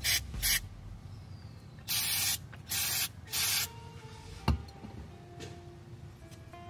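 Aerosol carburetor cleaner sprayed through a straw onto a small-engine carburetor in short hissing bursts: two quick spurts at the start, then three longer ones of about half a second each around the middle. A single sharp click comes about four and a half seconds in.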